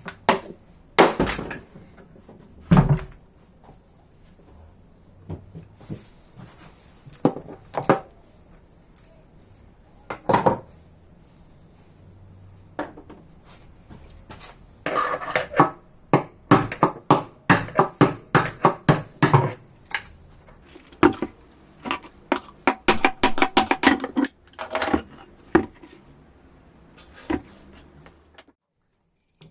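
Hand tools and metal washing-machine drum parts clanking and knocking in scattered sharp impacts, followed by two runs of rapid repeated metallic strokes in the second half, some ringing briefly.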